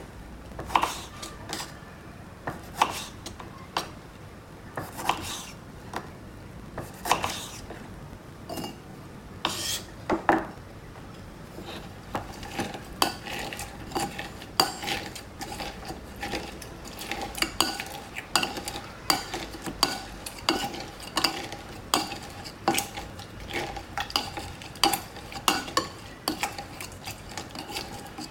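Muddler pressing and striking diced lime inside a metal cocktail shaker tin to press out the juice. A few scattered knocks at first, then steady strokes about two a second, each with a metallic ring.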